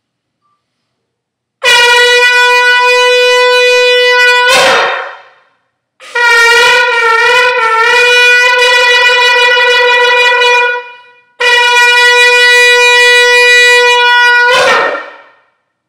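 Shofar blown in three long, loud blasts on one held note. The first and last are steady and end with a quick upward flick in pitch. The middle blast wavers in pitch for a stretch near its start.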